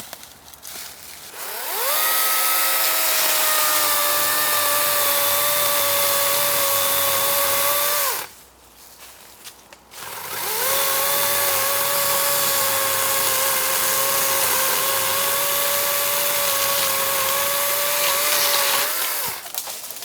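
Kobalt 24-volt cordless electric chainsaw running in two runs: its motor whine rises as it spins up, holds a steady pitch for about six seconds, and falls away as it stops. After a short pause it spins up again for about nine seconds before winding down.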